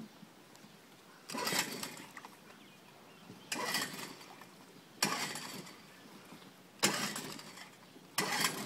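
Small gasoline outboard motor being pull-started: five pulls on the starter cord, each cranking it briefly and dying away, until the last pull near the end catches and the engine keeps running.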